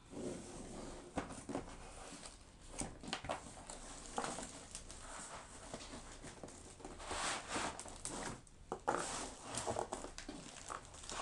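Paper booklets and packaging from a laptop box rustling and crinkling as they are handled, with small knocks and taps in between.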